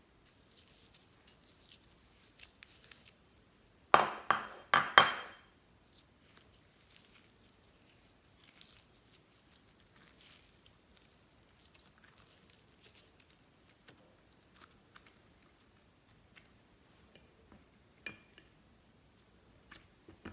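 Glitter slime being pulled out of a plastic mold and squeezed by hand: faint sticky crackles and clicks, with a quick run of four loud sharp pops about four seconds in.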